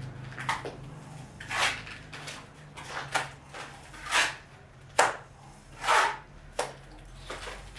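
A mason's trowel scraping against the masonry inside the barbecue opening, in short irregular strokes about one a second, with one sharper knock about five seconds in.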